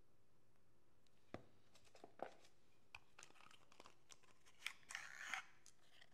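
Light clicks and taps as metal lipstick cases and a small cardboard box are handled, then a brief scraping rustle, the loudest sound, about five seconds in as the lipstick case slides out of its box.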